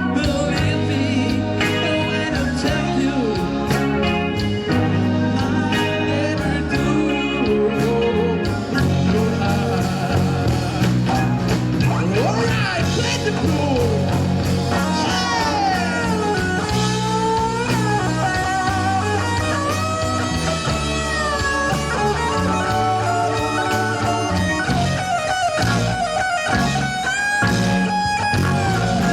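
Rock song played by a band with guitar, bass and drums, and perhaps a voice; a guitar or vocal line bends and slides in pitch through the middle.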